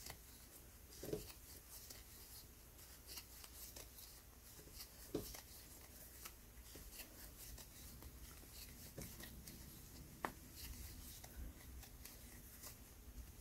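Faint rustling of yarn and light clicks of a metal crochet hook working single crochet stitches, with a few slightly louder ticks.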